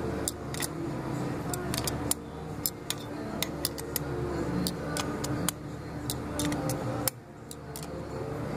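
Light, irregular metallic ticks and clicks as the rear head of a hydraulic cylinder is worked into position over its piston and transfer tubes.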